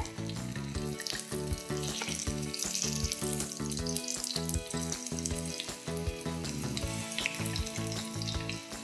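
Hot oil sizzling around cheese-stuffed potato patties shallow-frying in a nonstick pan, over background music with a steady beat.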